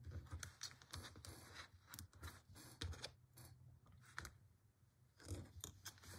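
Faint, scattered clicks and scratches of hands handling plastic locking stitch markers and crocheted yarn.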